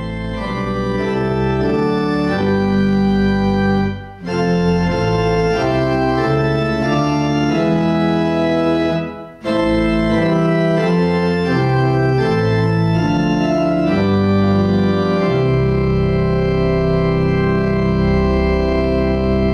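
Organ music playing sustained chords, with two brief breaks between phrases about four and nine seconds in, and a long held final chord near the end.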